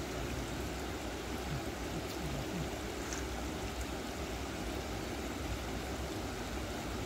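Water rushing steadily through a concrete weir spillway, an even rush of noise.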